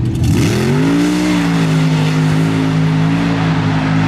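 Old Ford mud truck's engine revving hard: the pitch dips briefly, climbs within the first second, then holds steady at high revs, loud throughout.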